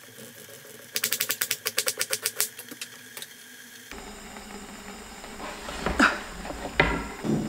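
Chef's knife rapidly mincing onion on a wooden cutting board: a fast, even run of blade strikes, about eight a second, lasting a couple of seconds. Near the end come a few softer knocks and scrapes as the blade gathers the minced onion across the board.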